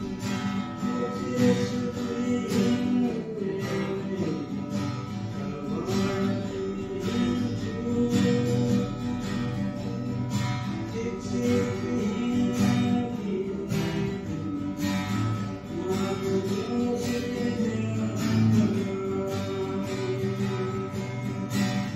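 A man singing a song while strumming an acoustic guitar into a microphone.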